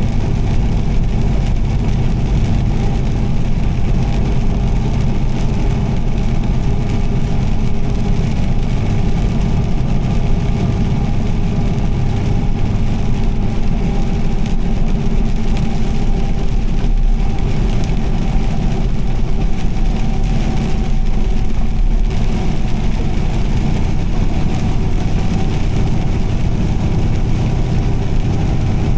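A car's engine and road noise while driving at a steady speed: a constant low drone with a faint hiss over it.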